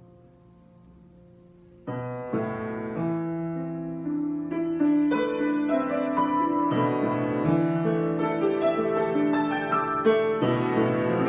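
Solo piano improvisation: a held chord fades for about two seconds, then a loud low chord is struck and the playing moves into busier chords and melody, growing louder from about four seconds in.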